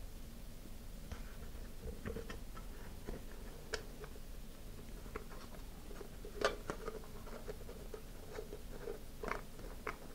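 Felt-tip marker tapping dots onto a hollow plastic nose cone, with small handling knocks as the cone is turned; irregular light taps, the sharpest about six and a half seconds in.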